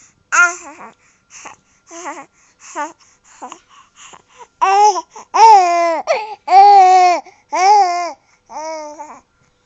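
Baby babbling in a string of short vocal sounds, which about halfway through turn into several longer, louder drawn-out calls.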